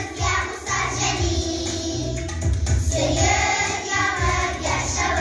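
A group of young children singing together in Tatar over an instrumental accompaniment with a steady bass line.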